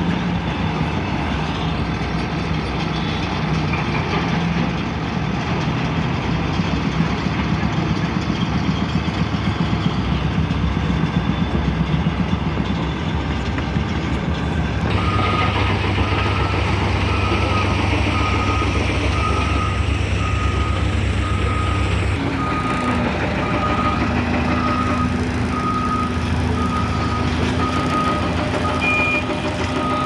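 Heavy diesel engine of a motor grader running steadily on a construction site. About halfway through, a reversing alarm starts beeping, roughly one beep a second.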